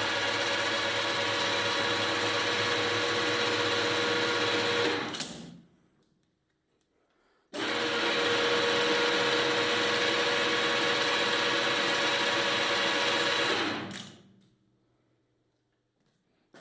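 SA 562 S100 lathe running with a steady mechanical whine. It winds down about five seconds in, starts again abruptly a couple of seconds later, runs steadily and winds down again near the end.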